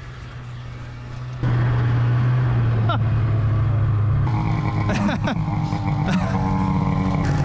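Snowmobile engine running steadily. It gets sharply louder about a second and a half in and changes tone again around four seconds. A short voice sound or two can be heard over it.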